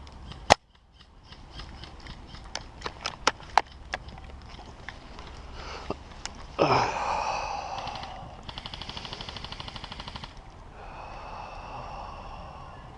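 Airsoft guns firing: one sharp loud shot about half a second in, then scattered single shots, and a rapid full-auto burst of about two seconds a little past the middle. A sudden loud sound with shifting pitch cuts in about six and a half seconds in.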